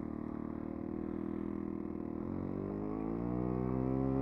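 Flair SE5A model plane's engine running steadily at low throttle, then opened up about two seconds in, its pitch rising and getting louder.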